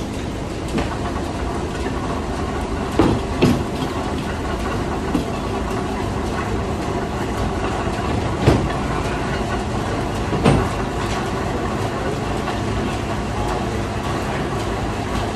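Steam-powered cider mill machinery running steadily as the Boomer & Boschert press squeezes juice from the apples, with a few sharp clanks: two close together about three seconds in, and single ones around eight and ten seconds.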